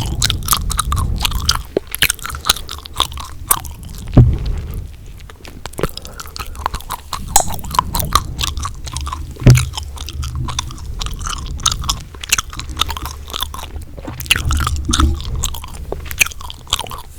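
Close-miked gum chewing: a dense, irregular run of wet clicks and smacks, with two louder sharp pops, about four seconds and about nine and a half seconds in.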